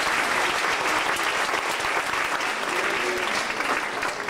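Audience applauding, many hands clapping, thinning out toward the end.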